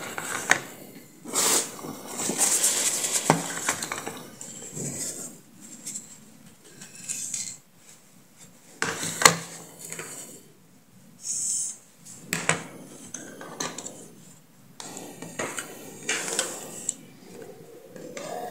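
Handling noise from a Honda Activa 125 meter cluster's plastic housing and circuit board being picked up and fitted together: scattered clicks and knocks of hard plastic, the sharpest about halfway through, with rustling in between.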